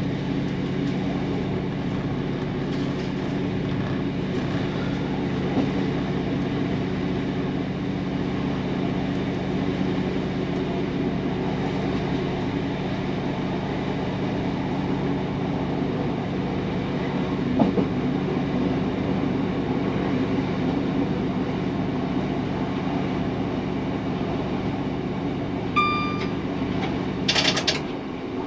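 Class 150 diesel multiple unit running along the line, heard from the cab: the steady drone of the underfloor diesel engine with the rumble of wheels on rail and a single clunk about two-thirds of the way through. Near the end a brief electronic beep sounds, followed a second later by a short loud hiss.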